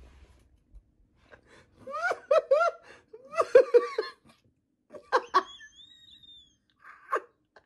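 A person laughing in short, high-pitched bursts: about two seconds in, again around three and a half seconds, and once more around five seconds.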